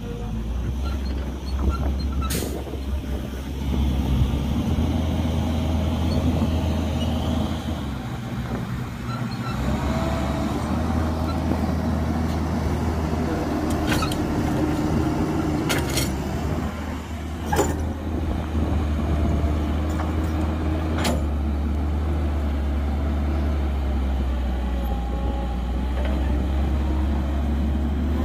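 Heavy diesel engine of an excavator loading a dump truck, running continuously, its note rising and falling as the load changes. Scattered sharp knocks come about two, fourteen, sixteen, eighteen and twenty-one seconds in.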